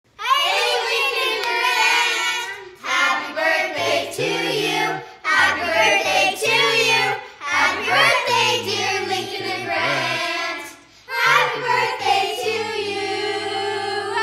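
A group of children and women singing together, in short phrases with brief pauses between them.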